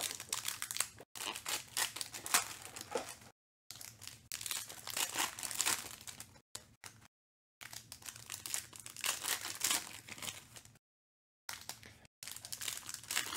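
Foil wrappers of 2020 Panini Select Football hobby packs crinkling and tearing as the packs are ripped open and handled, in several stretches broken by short silent gaps.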